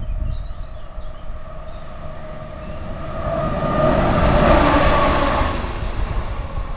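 Vossloh G1206 diesel-hydraulic locomotive running light past at close range. Its engine and wheels swell in from about three seconds in, are loudest around four to five seconds, then fade as it moves away.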